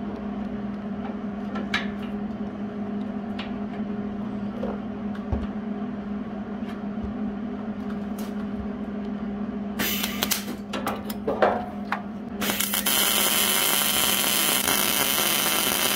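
MIG welder tack-welding a steel tab onto a bumper bracket: a few short sputtering starts of the arc about ten seconds in, then one continuous weld lasting about three and a half seconds. A steady electrical hum runs underneath throughout.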